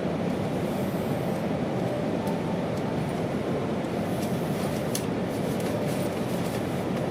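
Steady rumble inside the cabin of an E2 series Shinkansen car as the train runs.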